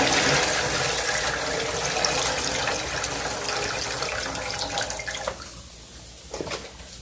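Water with vinegar being poured off a container of raw chicken, a steady splashing rush that tapers away about five seconds in.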